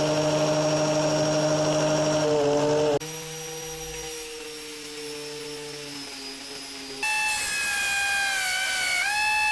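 Black and Decker angle grinder with a 60-grit sanding disc running with a steady whine while grinding against a toy car. The sound comes in three abruptly cut pieces, at about 3 s and 7 s; the last piece is higher-pitched and wavers near the end as the load on the disc changes.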